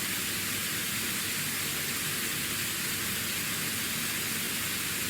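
Steady hiss of static noise, even throughout and strongest in the high end, with no tones or knocks in it.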